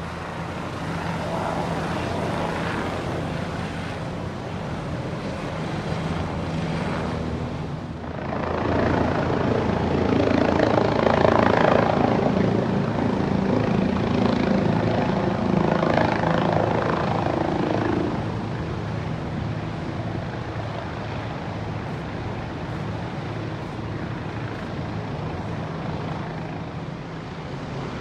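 Steady engine drone throughout, growing louder and fuller for about ten seconds in the middle.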